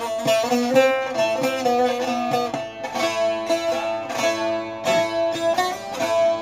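Bağlama (long-necked Turkish saz) played solo: an instrumental passage of quickly picked notes over steadily ringing drone strings, with no singing.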